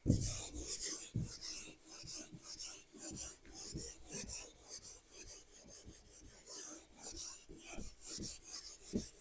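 Writing by hand: a run of short, irregular scratching strokes, with a soft knock at the start.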